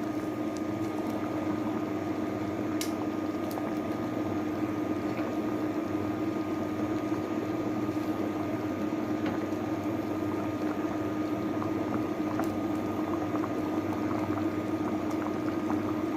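Chicken curry with coconut milk bubbling at a simmer in a pot on the stove: steady bubbling with a few small pops, over a steady low hum.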